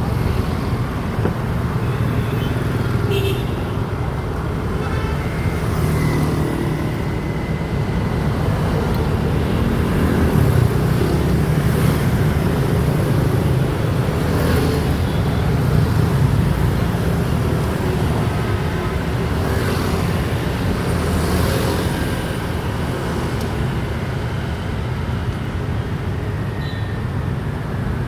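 Steady road-vehicle noise: an engine and a low road rumble running continuously, with traffic around.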